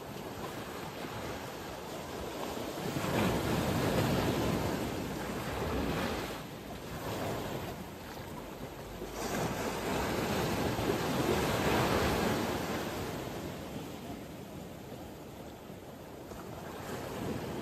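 Sea surf breaking and washing against a rocky shore. It swells up loud twice, a few seconds in and again around the middle, then eases off.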